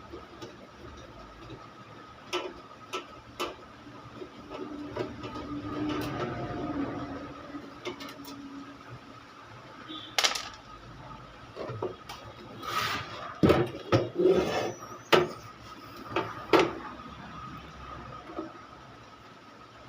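Handling noise at a repair bench: scattered clicks and knocks, with a burst of louder knocks and clatter about two-thirds of the way through, over a faint steady tone.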